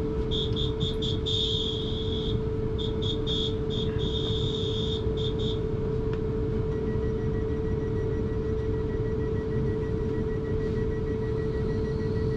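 Train door warning beeps: high electronic beeps in two runs of short beeps each ending in a longer one, over the steady hum and rumble of the electric train standing at the platform.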